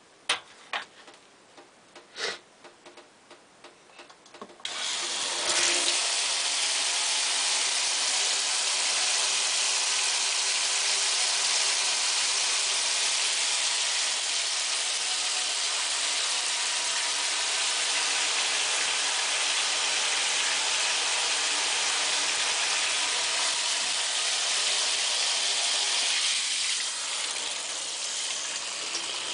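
A few light clicks and knocks, then about five seconds in the water comes on: a shower head spraying a steady, even rush of water. The rush drops a little near the end.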